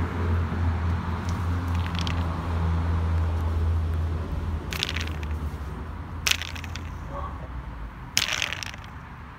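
Four short crunches and crackles, a second or more apart, the last two the loudest, over a low rumble that fades out near the end.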